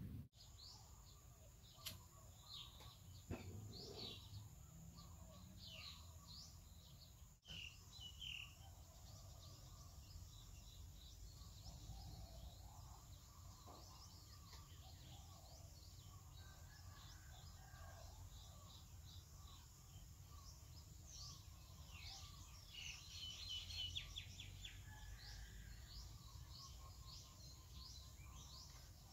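Faint outdoor birdsong: many short chirps and calls, with a rapid trill toward the end, over a steady low background rumble.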